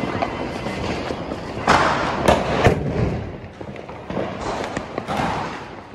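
Firecrackers going off: a cluster of sharp bangs about two seconds in, loudest in the middle, then a couple more near the end.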